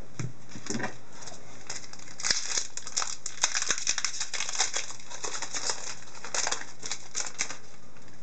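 Plastic wrapper of an Upper Deck hockey card pack crinkling and tearing as it is opened, a run of sharp crackles after a couple of soft knocks at the start.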